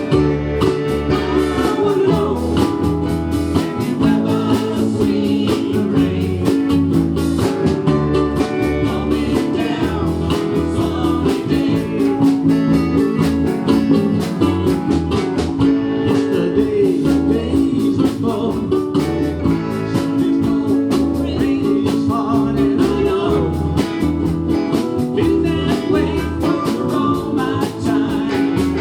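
A group of ukuleles strumming with voices singing a country-rock song to a steady beat.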